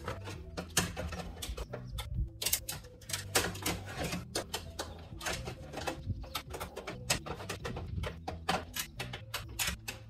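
Rapid, irregular clicks and taps of hand tools and metal parts as a replacement trunk latch is fitted and screwed into the tailgate, over a steady low hum.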